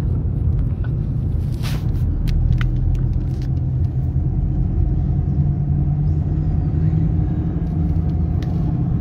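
Car engine and road rumble heard from inside the cabin of a moving car: a steady low drone, with a few faint clicks and rattles.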